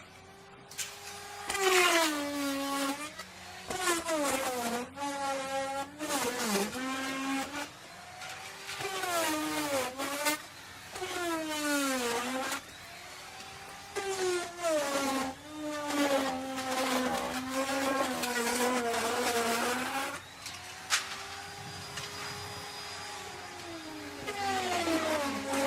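Electric woodworking router running and cutting wood. Its motor pitch dips under load and recovers, again and again, as the bit bites into the wood and comes free.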